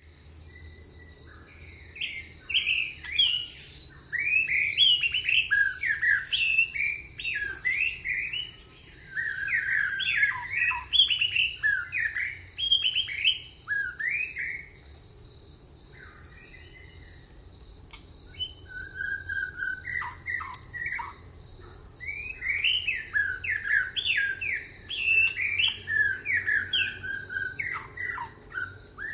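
Songbirds singing: many quick, overlapping chirps and warbling phrases, sparser for a few seconds just past the middle. Beneath them runs a steady, high, pulsing trill.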